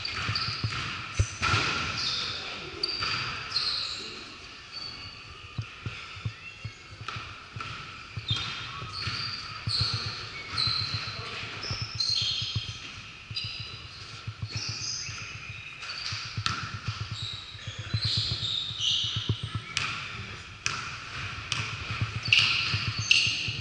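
Basketball bouncing on a hardwood gym floor, with sneakers squeaking on the court now and then, in a large echoing gym.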